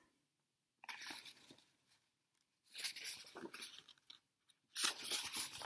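Paper rustling and crackling as a picture book's pages are handled and turned, in three short bouts.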